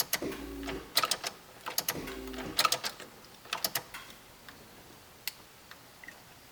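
Ignition key of a Jeep Cherokee XJ being cycled on and off several times to pull trouble codes: a string of clicks, with a short low hum twice as the key reaches on, then a few faint ticks.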